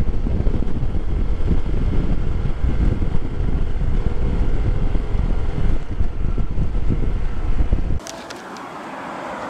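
Wind buffeting the microphone, with road and engine noise, as a Honda PCX125 scooter rides along at speed. It cuts off suddenly about eight seconds in, leaving a much quieter background with a few sharp clicks.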